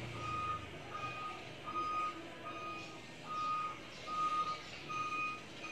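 Vehicle reversing alarm beeping: a single high tone repeating evenly, a little faster than once a second.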